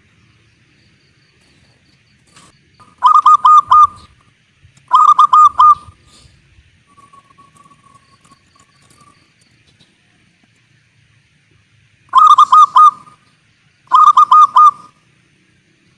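Zebra dove (perkutut) cooing: four loud phrases, each a quick run of about four clipped notes, coming in two pairs a few seconds apart.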